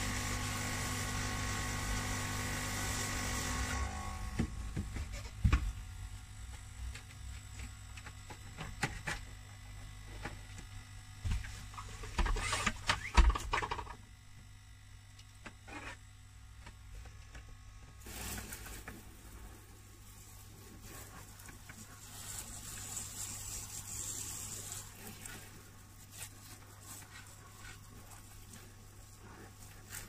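Cleaning liquid sprayed onto car carpet from a Kärcher spray extractor: a hiss over a low hum, loudest for the first few seconds, then knocks and clicks of the nozzle being handled, and a softer hiss of spraying again in the second half.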